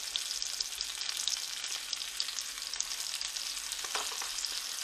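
Grouper fillet frying in butter and oil in a stainless steel skillet: a steady sizzle with small crackles and pops.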